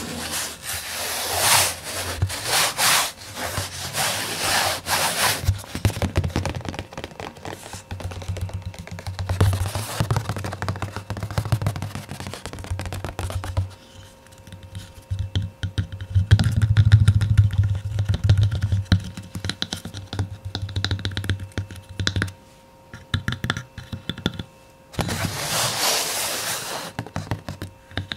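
Fast, dense ASMR tapping close to the microphone, mixed with bursts of scratching and rubbing in the first few seconds and again near the end, and low thumps in the middle.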